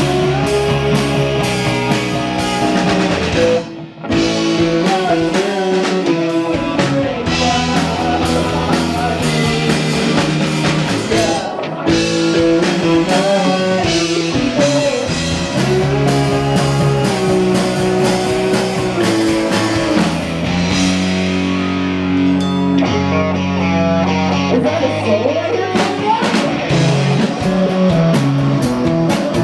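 Rock band playing live: guitar chords over bass and a drum kit. There is a short break in the music about four seconds in.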